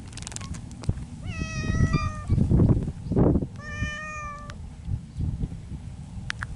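Stray cat meowing twice, each call lasting about a second at a fairly even pitch, courtship calling between a tomcat and a female. Between the two calls comes a louder muffled rustling thump.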